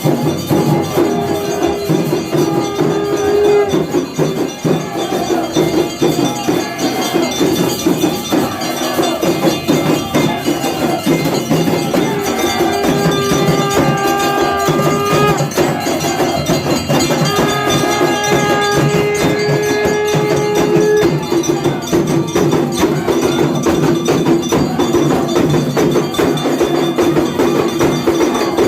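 Temple aarti bells and percussion struck rapidly and without pause. A long held note sounds three times over them: near the start, about halfway, and about two-thirds through.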